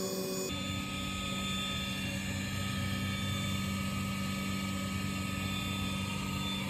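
Electric blower on a homemade wood gasifier running with a steady hum, drawing air through the freshly lit charge to make gas; the tone drops to a lower pitch about half a second in.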